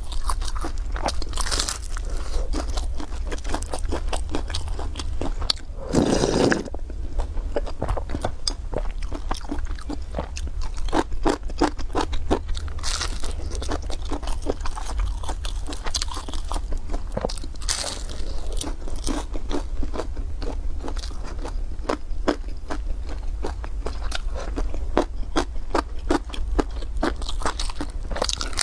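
Close-miked crunching bites and chewing of a crisp pan-fried beef pie, with many short crackles throughout and one louder, longer burst about six seconds in, over a steady low hum.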